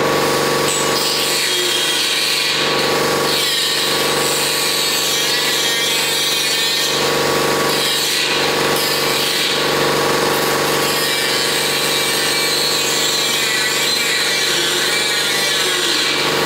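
Handheld angle grinder running with a steady whine while its disc cuts into the steel at the rear of a van, throwing sparks. The gritty cutting noise eases off and comes back several times as the disc is pressed in and lifted.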